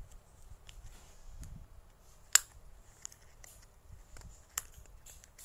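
Handling noises and small sharp clicks as a small cosmetic container's lid is closed, the loudest click about two and a half seconds in and another near the end.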